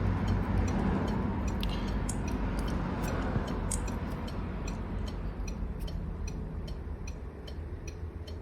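Hazard-light flasher ticking steadily, about two to three clicks a second, over a low steady hum.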